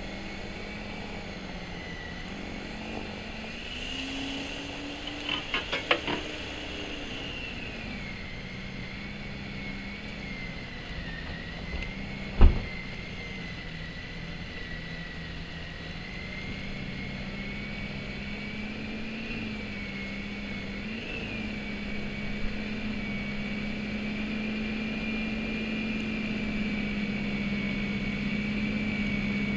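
Snow Joe electric snow thrower running steadily, a high wavering motor whine over a low hum. There is a short rapid clatter about six seconds in and one sharp knock near the middle.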